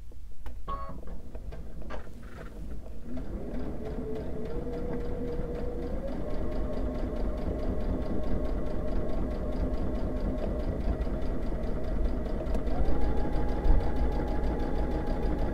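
Electric sewing machine stitching in the ditch through layered cotton fabric. After a few handling clicks its motor whine sets in about three seconds in, then steps up in pitch a few times as the stitching speeds up.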